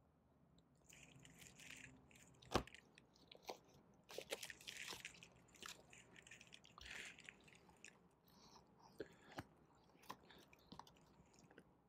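Faint handling noise of vinyl LPs in clear plastic sleeves: scattered crinkling and rustling as the records are moved and slid into a box set, with one sharper knock about two and a half seconds in.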